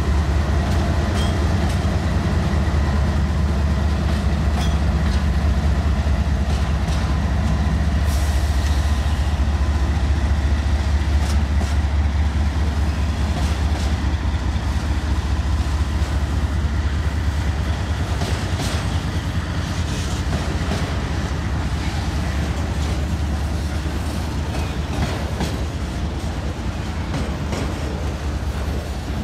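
A diesel-hauled freight train passing close by. The locomotives' engines rumble heavily for the first several seconds, then the autorack cars roll past with a steady run of wheel clicks over the rail joints.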